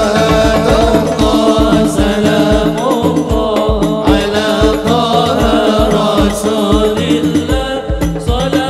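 Live hadroh sholawat: men chanting Arabic devotional verses in unison into microphones, over a steady beat of frame drums and deep bass hadroh drums struck several times a second.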